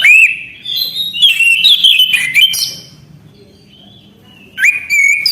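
Orange-headed thrush (anis kembang) singing in phrases of varied whistled notes with quick up-and-down slurs, broken by a pause of about a second and a half before the last phrase.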